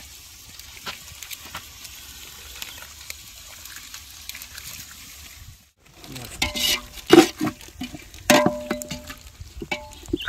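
Chicken and masala frying in a pot, a steady faint sizzle with light scrapes of stirring. After a brief drop-out about halfway through come louder clatter and sharp clinks of a utensil against the metal pot, some of them ringing briefly.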